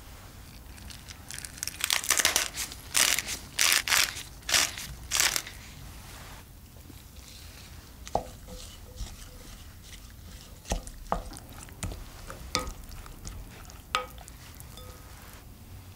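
A pepper mill grinding in about six crunchy strokes. Then a wooden spoon stirs a soft cheese mixture in a glass bowl, clicking now and then against the glass with a faint ring.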